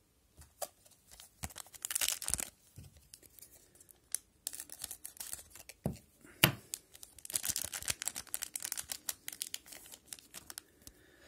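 A trading-card pack's wrapper being crinkled and torn open, in two stretches of crackling with a couple of sharp knocks in between.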